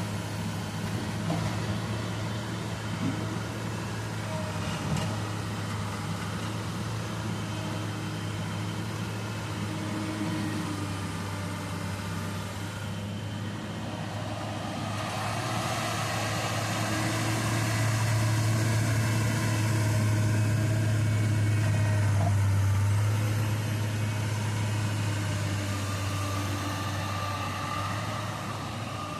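Excavator's diesel engine running steadily with a low hum while the machine works, growing louder for several seconds past the middle as it takes more load.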